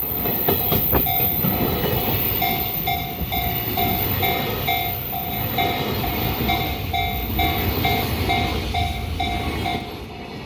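A JR Kobe Line train passing over a level crossing at speed, its wheel and track noise loud with a few sharp clacks about a second in, then falling away near the end. Throughout, the crossing's electronic warning bell rings in even pulses about twice a second.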